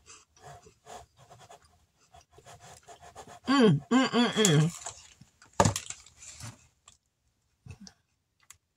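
Close-up crunchy chewing of a white-chocolate Kit Kat wafer, with small crackles throughout. About three and a half seconds in comes a short run of hummed 'mmm' sounds, the loudest part.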